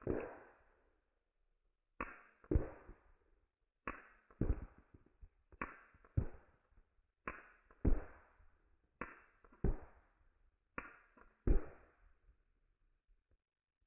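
BB pistol being fired at a beach ball: a regular series of sharp cracks in pairs, two cracks about half a second apart, with a new pair roughly every second and a half to two seconds, seven pairs in all.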